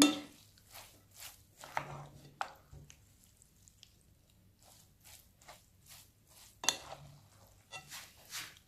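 Hands mixing a wet filling of soaked vermicelli and chopped calamari in a bowl: irregular soft squishing strokes, one louder near the end.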